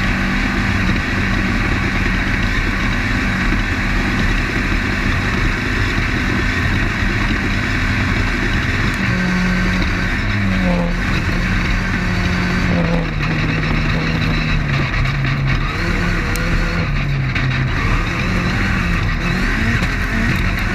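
Desert off-road race car running at race pace, heard from on board: a steady engine note under heavy wind, dirt and chassis noise. From about halfway through, the engine pitch repeatedly drops and climbs in steps as the revs change.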